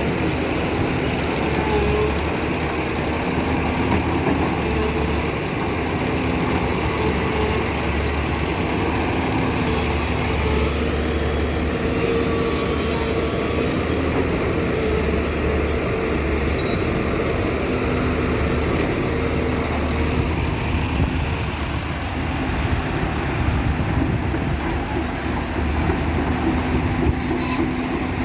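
Heavy vehicle's diesel engine running steadily under load, a low hum with tones that come and go as the load shifts.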